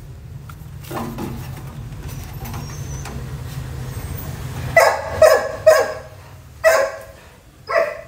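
A dog barking: five short, sharp barks over about three seconds, starting about halfway through.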